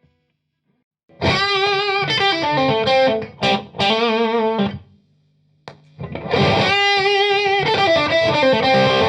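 Electric guitar played through a Limetone Audio FOCUS-NX compressor pedal with its Color 2 control turned up, giving a nasal, fixed-wah-like boost in the lower midrange. Two lead phrases with a short pause between them, the held notes bent and shaken with vibrato.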